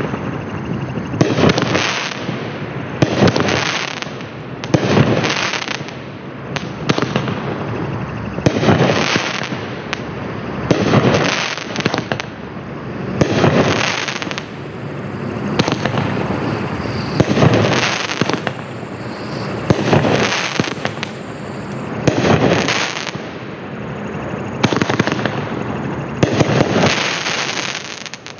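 Black Cat Rattler 500-gram fireworks cake firing its 12 shots one after another, about every two seconds, each a sharp bang followed by a spreading crackle.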